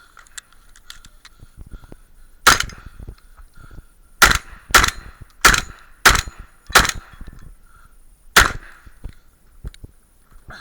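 A shotgun fired seven times: a single shot, a pause of almost two seconds, five shots in quick succession about half a second apart, then one last shot.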